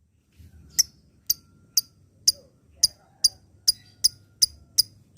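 Lovebird giving a string of short, sharp, high chirps, about two a second, starting just under a second in, over a faint low hum.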